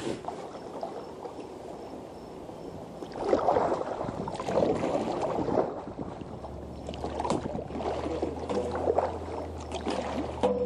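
Kayak paddle strokes in the water, irregular splashing and dripping beside the hull, louder from about three seconds in.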